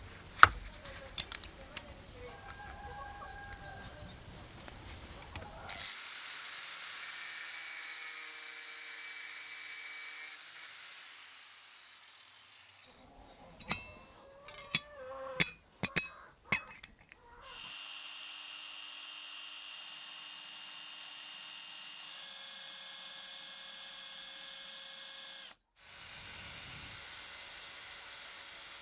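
A small power tool runs with a steady high whine for a few seconds, winds down, then runs again for a longer stretch and cuts off. Sharp clicks and taps of small parts being handled come near the start and between the two runs.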